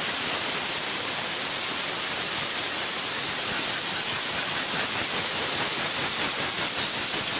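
Compressed air hissing steadily from an air blow gun, blowing dust off a bowling lane machine's duster liner and cleaning brush.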